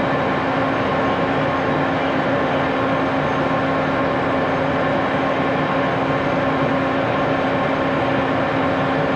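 Monarch 10EE lathe running at a steady speed: an even mechanical hum with one steady tone over a broad, unchanging noise.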